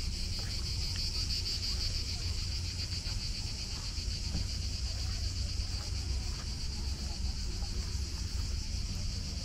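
Cicadas singing: a steady, high buzzing with a fast pulsing texture, over a low rumble.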